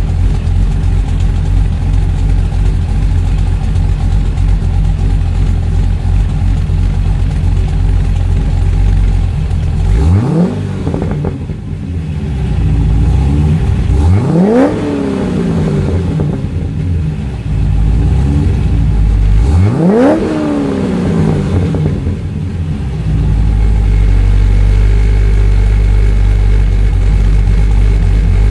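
2012 Corvette C6 Grand Sport's LS3 V8, with an aftermarket cam, Kooks headers, catless X-pipe and Borla exhaust, idling at the tailpipes. It is revved three times in the middle, each rev climbing quickly and dropping back to idle.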